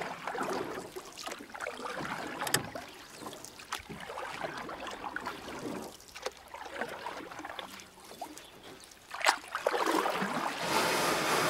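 Canoe paddles dipping and splashing in water in an irregular rhythm, with water running past the hull. About nine seconds in, a louder rush of water swells up.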